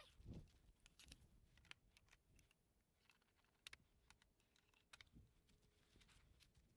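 Near silence, with faint scattered clicks and light knocks from composite garden-bed boards and plastic snap-lock brackets being handled and fitted together.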